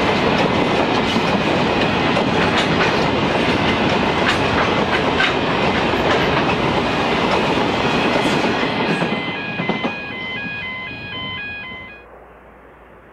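Freight train hopper wagons rolling past: a steady heavy rumble with the clicking of wheels over rail joints, easing off as the last wagons go by and then dropping away abruptly near the end.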